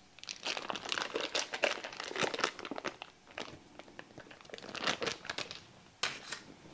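Foil wrapper of a block of cream cheese being peeled open and crinkled, an irregular run of crackles, followed by a single sharp knock about six seconds in.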